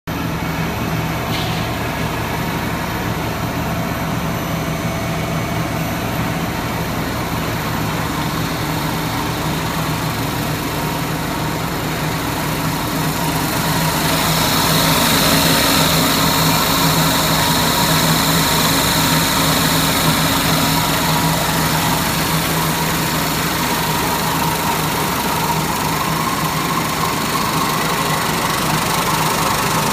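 Machinery of a breakfast cereal production line running: a steady mechanical hum with a constant low drone. It grows louder, with more hiss, about halfway through.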